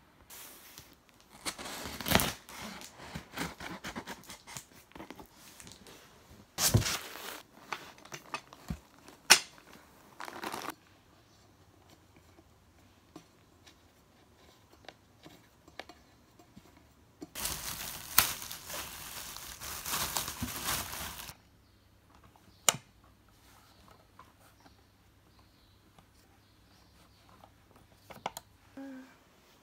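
Packaging being handled: plastic wrap and packing material crinkling and tearing in two long stretches, with a few sharp clicks and knocks in between and near the end.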